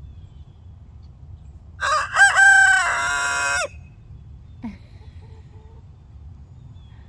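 Young rooster crowing once: a crow of about two seconds that opens with short rising notes and ends on a held note, cut off sharply. It is a late-maturing rooster that has only just begun to crow.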